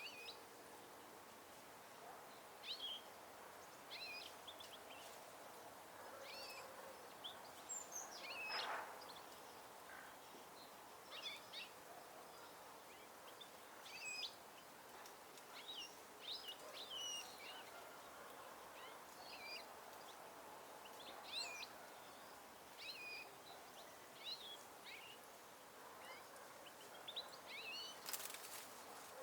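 Small songbirds calling in short, high chirps and twitters, scattered every second or two over a faint steady background hiss. A sharp click near the end.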